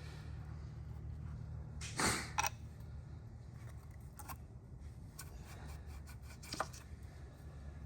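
Steady low hum with a short scrape about two seconds in and a few faint sharp clicks later, from work on an LS1 engine being taken apart.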